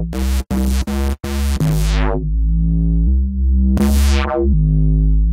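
Electronic music: synthesizer chords over a heavy bass line, with two brief sharp dropouts in the first second and a half.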